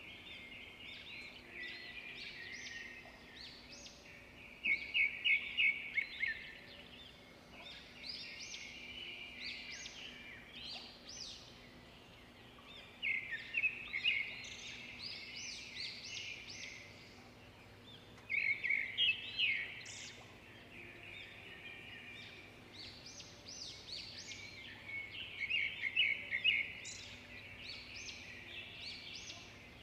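Birds calling and chirping, with louder bursts of rapid trilled notes every several seconds.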